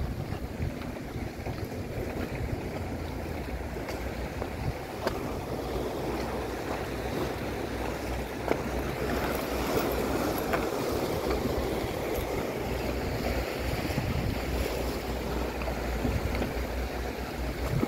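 Wind buffeting the microphone over a steady rush of sea waves washing against rocks.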